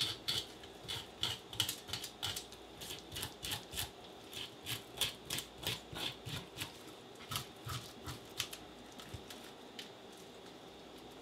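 A knife scraping the scales off a whole porgy held down in a stainless steel sink: short rasping strokes at about two a second, thinning out and stopping about nine seconds in.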